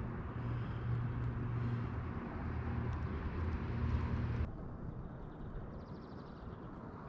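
Steady low rumble of distant traffic with a faint hum and hiss; the hiss drops away suddenly about halfway through, leaving a quieter rumble.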